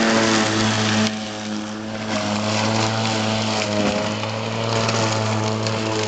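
Electric lawn mower motor and blade on a homemade remote-control robot mower running at full speed as it drives over and cuts the grass: a steady hum with overtones over a rushing noise, and a sharp click about a second in.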